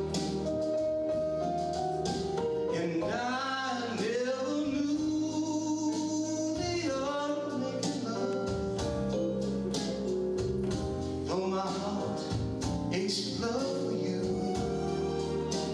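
A man singing live into a handheld microphone, with long held notes and bending vocal runs, over backing music with a regular drum beat.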